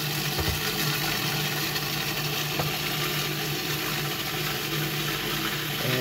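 Cuisinart 14-cup food processor running steadily, its blade spinning through pesto while olive oil is added.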